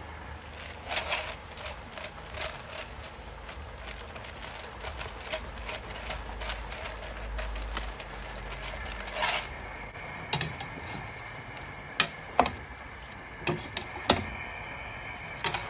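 A slotted metal spoon knocking and scraping against a cooking pot as raw chicken and vegetable chunks are stirred, with sharp clinks clustered in the second half. Earlier there are a few short scratchy rustles while black pepper goes onto the ingredients.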